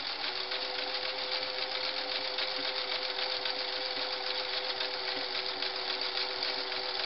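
Singer Model 347, an early-1960s metal-geared sewing machine, running at an even speed while it stitches a close zigzag toward a satin stitch. It has a steady motor hum under a fast, even needle clatter.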